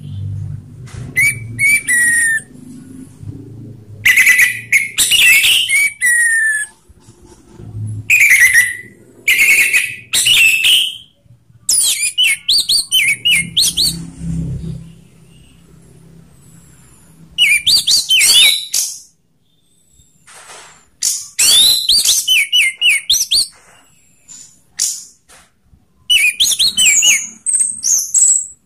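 Orange-headed thrush singing loud, full 'ngeplong' song: about eight quick phrases of sweeping, high whistled notes, each one to three seconds long, with short pauses between them.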